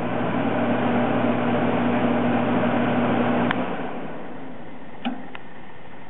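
Old belt-driven furnace blower with a Dayton 110 V motor running, a rush of air over a steady electrical hum. About three and a half seconds in the hum stops with a click and the air rush dies away as the blower coasts down; two small clicks follow near the end.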